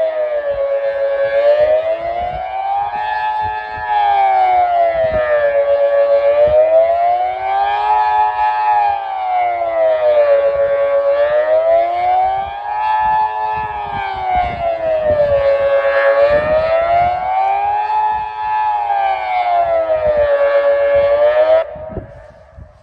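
Kockum Sonics Delta 4 electronic civil-defence siren, driven by the original grey Delta controller, sounding the Swiss general alarm: a rough, raspy tone rising and falling about every four and a half seconds, then cutting off abruptly shortly before the end. Strong wind buffets the microphone underneath.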